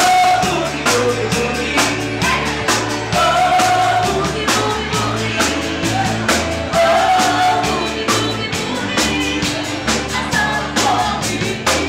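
Live band playing an upbeat boogie-woogie number: a walking bass line, steady drum beat and guitar, with a woman singing long held notes into a microphone.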